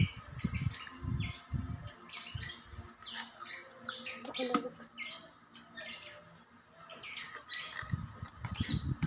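Handling noise from an electric kettle's power base and cord being unwound, with low knocks in the first couple of seconds and again near the end, amid a run of many short, high-pitched chirps throughout.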